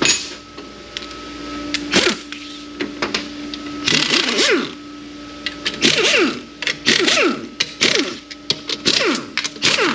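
A power tool being run in short bursts on the AOD transmission's bolts. Each burst is a whine that falls in pitch, with sharp clicks and metal clatter between them.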